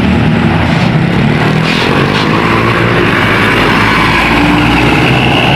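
Large tour bus's diesel engine running steadily as the bus drives past, over a haze of road noise.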